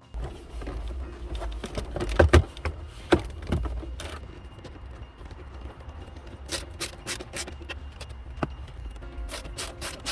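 Hands working loose plastic parts: a string of sharp clicks, knocks and scrapes with a low rumble beneath, loudest around two seconds in and quickening near the end, with background music playing.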